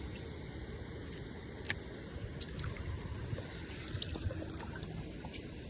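Creek water running steadily over rapids, with a few faint, short clicks or taps, one of them sharper about a second and a half in.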